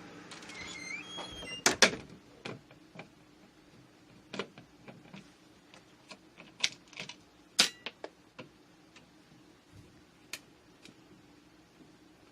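Irregular clicks and taps of a screwdriver working on a plastic light-switch wall plate, the sharpest about two seconds in and again past halfway, over a low steady hum.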